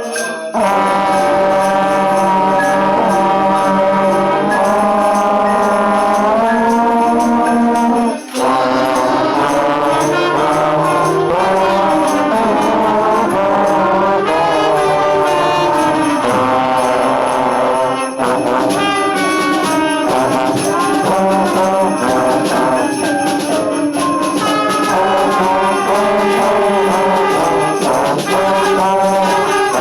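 Trombone playing a melody over an orchestral backing track with jingle bells and tambourine. The music breaks off for a moment about eight seconds in.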